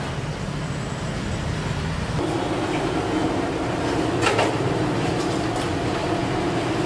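Steady rumbling kitchen noise, with a steadier hum joining about two seconds in. About four seconds in comes a short splashy scrape as a large perforated skimmer lifts boiled rice out of its cooking water.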